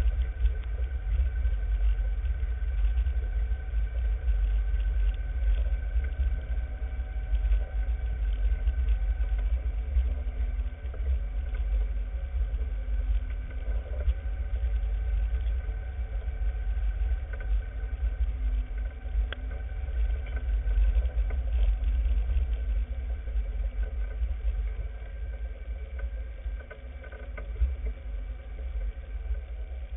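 Off-road vehicle driving along a bumpy dirt trail: a steady, uneven low rumble from the ride, with a faint engine drone over it.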